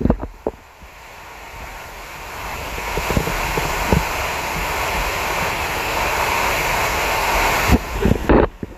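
A steady rushing noise that swells over several seconds and then cuts off suddenly, with a few footsteps on the trail.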